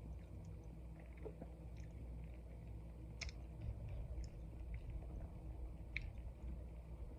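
Close-miked chewing of a soft pancake roll-up, with small wet mouth clicks throughout and a couple of sharper clicks about three and six seconds in.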